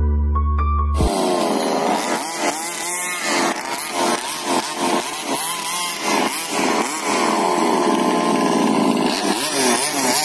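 After about a second of piano music, the small petrol engines of two 1/5-scale RC cars rev hard as they accelerate in a drag run. One is the 29cc two-stroke of a Rofun Baja buggy. The engine note rises and falls in pitch again and again as the throttle is worked.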